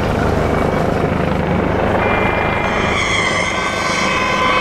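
Helicopter rotor running overhead, a steady low throbbing rumble. Several steady high tones join about three seconds in.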